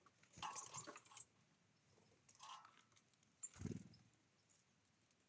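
Small birds at a feeder: a few short bursts of scuffling and crackling as they peck and handle seed, a brief high peep about a second in, and a soft low thump near the end.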